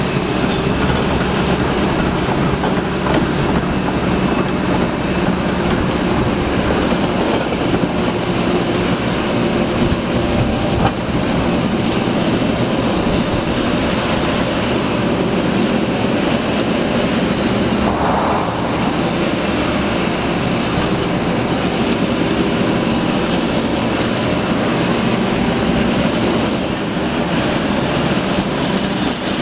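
Large crawler excavator at work in demolition: its diesel engine runs hard under hydraulic load while the demolition grab crushes and tears at concrete. Rubble clatters and crunches constantly, with no let-up in the noise.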